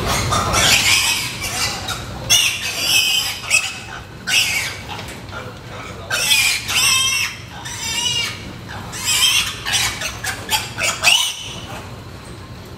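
Weaned piglets squealing in repeated shrill bursts, the loudest with a wavering pitch about six to seven seconds in. It is the distress squeal of a piglet being caught and held.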